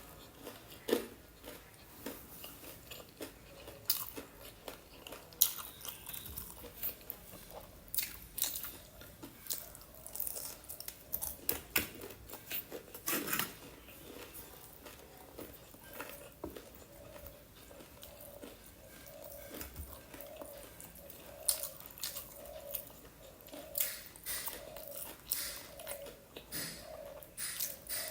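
Close-miked eating of crispy fried chicken and noodles: irregular sharp crunches and bites with wet chewing in between, loudest in a flurry near the middle and again toward the end.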